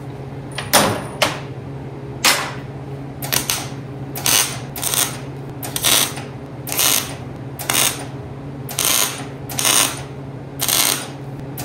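MIG (wire-feed) welder laying short stitch welds on a steel shaft: about a dozen brief bursts of arc crackle, each under a second, spaced roughly every half second to a second, over a steady low hum.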